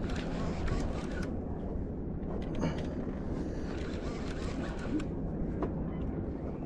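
Large conventional reel being cranked by hand under the load of a heavy fish, its gears turning with a few sharp clicks, over a steady low rumble.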